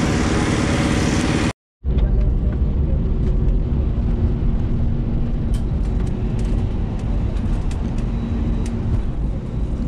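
For about a second and a half, loud even outdoor noise on an airport apron. Then a sudden cut to the steady low rumble and hum inside an airliner cabin, with a few faint clicks.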